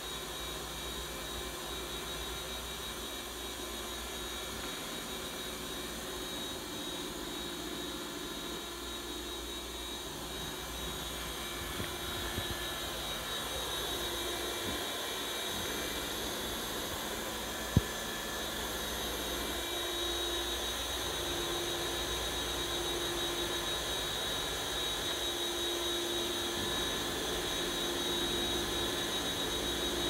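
Eufy X8 Pro robot vacuum running its roller-brush self-cleaning cycle on its dock: a steady motor and fan whir. A low tone pulses on and off through the second half, and there is a single sharp click a little past halfway.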